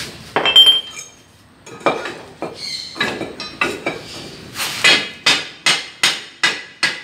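A metal tool striking the steel leaves of an Isuzu truck leaf spring pack: scattered ringing clanks, the loudest about half a second in, then a run of six evenly spaced blows, about two and a half a second, near the end.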